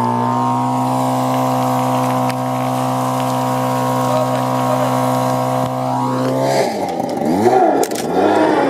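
Portable fire pump's engine running steadily at high speed. After about six and a half seconds the steady note breaks up into a wavering sound that rises and falls in pitch.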